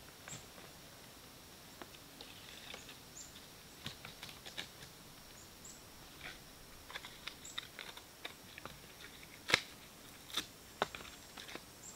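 Dry twigs and sticks being broken and laid into a fire lay: a scatter of small cracks and clicks, with a sharper snap about nine and a half seconds in and two more soon after.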